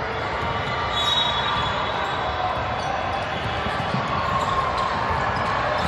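Basketball game sound: a ball bouncing on the court over a steady background hubbub.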